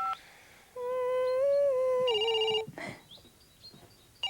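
A telephone ringing with a short electronic trilling burst about two seconds in. It is preceded by a voice humming one held note for about two seconds.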